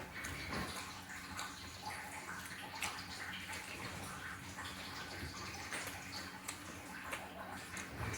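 Close-miked mukbang eating sounds: wet chewing of fried fish, with many small irregular mouth clicks over a faint steady low hum.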